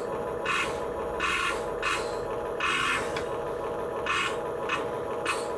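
Small electric gear motors of a hobby-grade RC Caterpillar construction vehicle whirring in short bursts, about eight times, as its arm and bucket are worked from the remote, over a steady hum.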